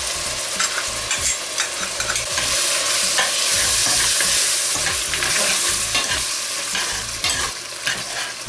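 Chicken and mushroom pieces sizzling in hot oil in a pan as they are stirred, with light clicks of the spoon against the pan; the sizzle swells about two and a half seconds in, as half a cup of yogurt is being stirred into the frying meat.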